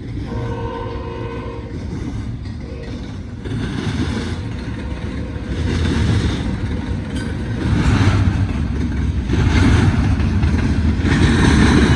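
Freight locomotive horn sounding two short blasts early on, part of a horn salute. Then the rumble of the train grows steadily louder as it comes close, with its wheels clattering over the rails in repeated surges.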